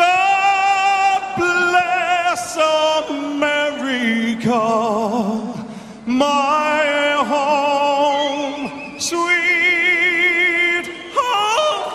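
A solo voice singing unaccompanied, holding long notes with a wide vibrato.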